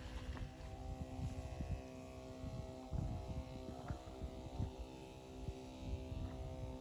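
A small motor running steadily at a constant pitch, with irregular low rumbling beneath it.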